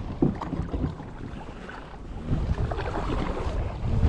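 Wind buffeting the microphone with a low rumble, easing for a moment and then gusting up again about two seconds in, with a few faint knocks.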